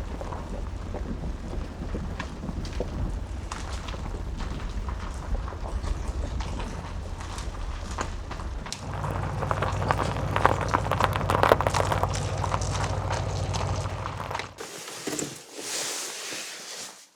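Car driving along a road, heard from inside: a steady low road and engine rumble with a dense crackle from the tyres, which shifts to a somewhat higher rumble about nine seconds in and stops about fifteen seconds in as the car pulls up.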